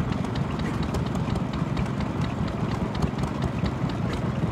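Vintage stationary engine running: a steady low chugging with rapid, slightly uneven clicking, several clicks a second.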